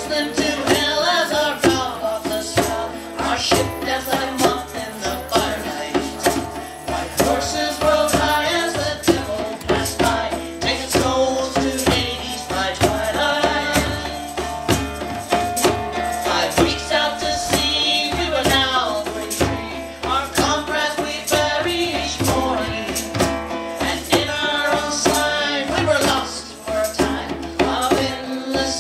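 Live folk song: voices singing with acoustic guitar over two djembe hand drums keeping a steady beat.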